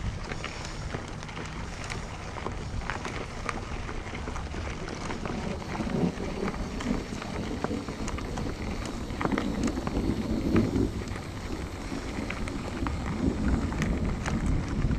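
Mountain bike rolling over a rough dirt trail: a steady rush of tyre and trail noise, broken by frequent short rattling clicks and knocks.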